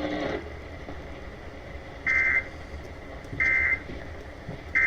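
Emergency Alert System end-of-message signal: three short buzzing bursts of the digital SAME data code, each about a third of a second long and roughly a second and a quarter apart, marking the end of the alert broadcast.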